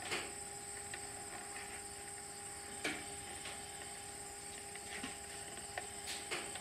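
A handful of small clicks and rubs as a wire is worked into the rubber cable-gland seals of a plastic solar combiner box, the sharpest just after the start and about three seconds in. A steady high insect drone runs underneath.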